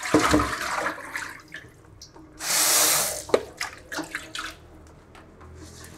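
Kitchen tap running into a sink during washing-up, with the clinks and knocks of dishes. About halfway through there is a short, loud gush of water.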